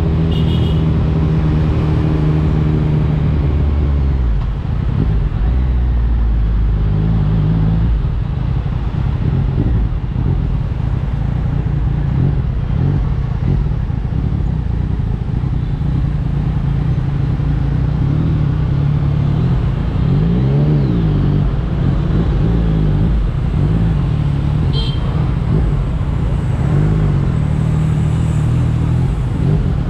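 2021 Yamaha MT-09's 890 cc inline-three engine running through an Akrapovic exhaust while the bike is ridden. The engine holds a steady note for the first few seconds, then its revs rise and fall as the rider accelerates and eases off.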